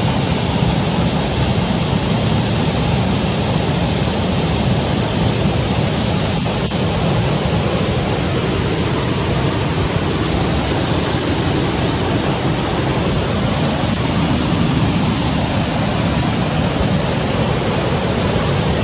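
Steady rushing noise throughout, with one faint click about six and a half seconds in.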